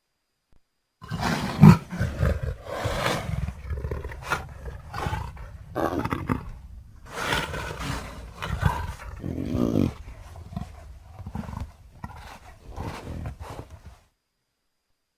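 A string of short, harsh roars and growls from a fossa sound-effect mix built from fossa, leopard and cougar recordings, the loudest about two seconds in, the calls stopping about a second before the end.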